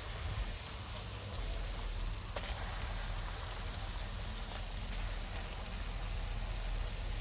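Burger patties sizzling steadily on a flat-iron griddle, left to char, with a faint click about two and a half seconds in.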